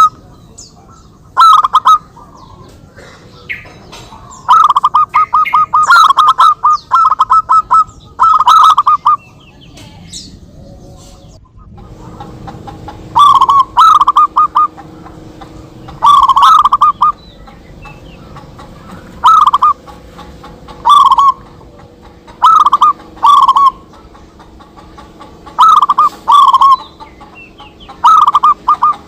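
Zebra doves (perkutut) cooing, with repeated short, rippling, staccato coo phrases. One call follows another as the birds answer each other. There is a pause of a few seconds a little before the middle.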